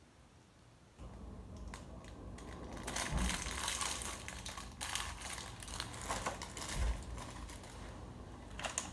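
Brittle plastic cheese wrapping crinkling and crackling in the hands as pieces of cheese are pulled out of it, starting about a second in, with a couple of dull bumps on the table.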